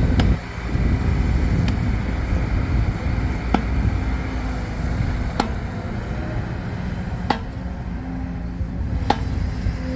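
A motor vehicle's engine running with a steady low rumble, with a sharp click about every two seconds.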